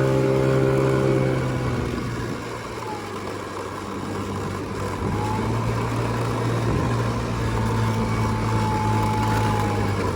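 Motorcycle engine running. Its steady note drops about two seconds in and then settles into a lower, even drone.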